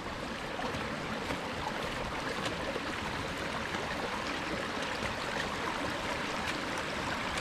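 A steady, even rush of water with no distinct knocks or steps standing out.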